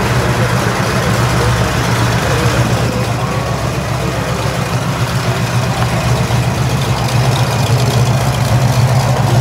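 Twin radial engines of a zebra-striped Sikorsky S-38 amphibian replica running at low taxi power as it rolls along the runway, a steady low drone.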